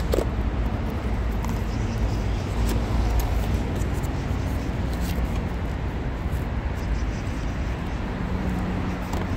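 Steady low rumble of road traffic, with a few light clicks and rustles as a cardboard box is handled.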